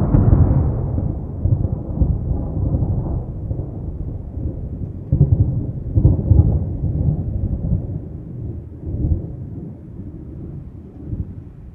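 Thunder without rain: a low, rolling rumble that slowly dies away, swelling again a few times, most strongly about five to six seconds in.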